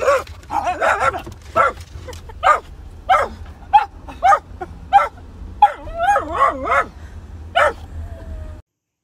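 A dog barking in a run of short, sharp barks, about one or two a second, with a wavering whine at the start and again about six seconds in. A low steady rumble runs underneath, and everything cuts off suddenly shortly before the end.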